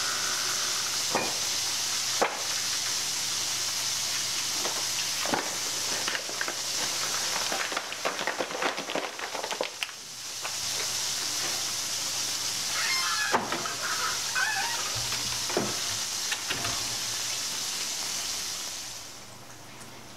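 Battered chicken of the woods mushrooms deep frying in hot oil in a cast iron pan, a steady sizzle with scattered sharp clicks. The sizzle dips briefly about halfway through and falls away near the end.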